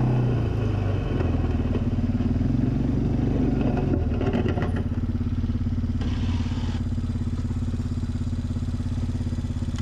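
2004 Suzuki Eiger 400 ATV's single-cylinder four-stroke engine running as it pushes a snow plow. The engine note drops within the first second, a brief rattle comes about four seconds in, and from about halfway it settles into a steady low running note.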